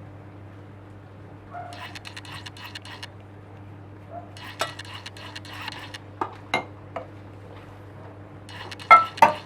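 Crockery and a spoon clinking: a few short scrapes, then sharp ringing clinks, the loudest two near the end, over a steady low hum.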